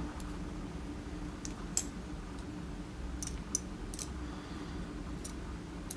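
Faint, scattered light clicks and ticks of small metal lock pins being moved and turned over, about a dozen in all, over a low steady hum.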